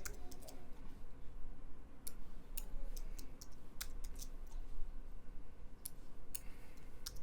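Irregular single clicks of a computer mouse and keyboard, about one or two a second, from someone working at a desktop computer.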